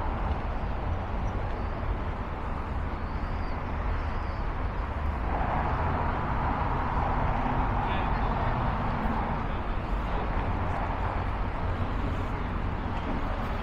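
Steady outdoor city noise with traffic, swelling a little about five seconds in.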